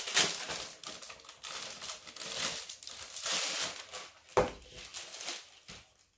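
Clear plastic wrapper crinkling as it is pulled open and sheets of cardstock and vinyl are slid out of it, with one sharp knock about four seconds in.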